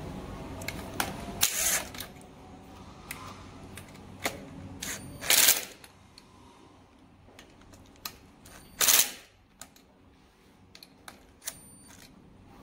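Handheld power driver running in three short bursts, about half a second each, as it drives screws, with small clicks and knocks of the tool and parts being handled in between.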